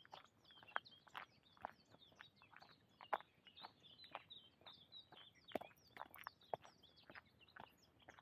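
Faint footsteps of a walker on a woodland path, about two steps a second, with many small birds chirping and twittering.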